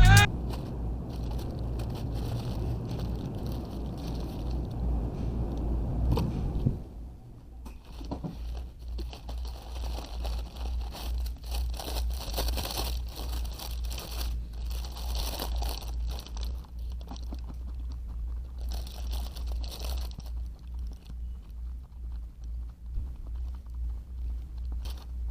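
Three-cylinder engine running with a steady, even low pulsing. It runs louder and fuller for the first seven seconds, then drops to a quieter, lower level that keeps the same pulsing.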